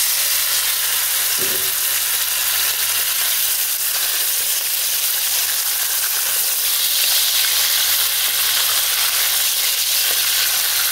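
Lamb pieces on the bone searing in hot oil in a frying pan, a steady frying sizzle, moved about with a spatula now and then. The hiss brightens a little about two thirds of the way through.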